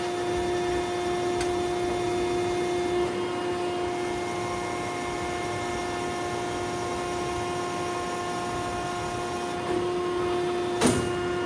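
Landis 3RH universal cylindrical grinder running through the spark-out stage of its automatic cycle, the wheel dwelling on the work with no further infeed: a steady machine hum with a steady tone. A single sharp click sounds near the end.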